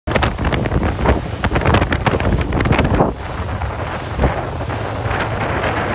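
Wind buffeting the microphone on a moving ferry, over the rush of water. The gusts are heavy and thumping for about the first three seconds, then settle into a steadier rush.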